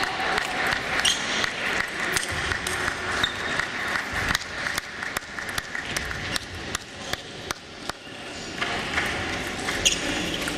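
Table tennis balls clicking off bats and tables in a hall where several matches are in play: a quick, irregular patter of sharp ticks, with a dull thump about four seconds in.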